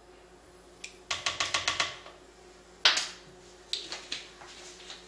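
Kitchen utensils and containers being handled at a countertop blender jar: a quick run of about seven sharp taps, then two separate clacks and a few lighter taps.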